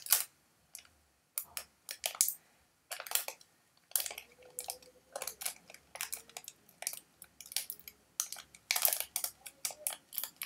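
Scissors cutting pieces of sticky tape and hands handling the tape: irregular clusters of small clicks, snips and crinkles with short pauses between them.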